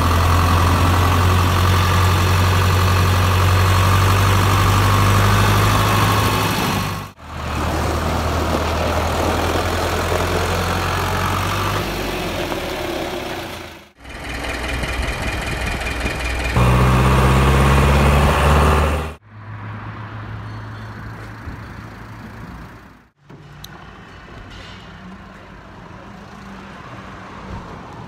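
Başak tractor's diesel engine running steadily, loud, the sound cutting off and changing abruptly every few seconds; it drops to a much quieter background for the last few seconds.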